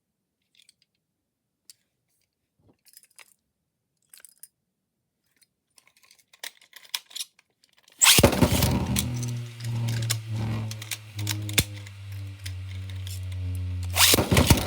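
Faint scattered clicks at first. About eight seconds in, 3D-printed Beyblade tops are launched into the stadium and spin with a steady whirring hum, broken by frequent sharp clicks as they strike each other and the stadium wall, with a loud burst of clashes near the end.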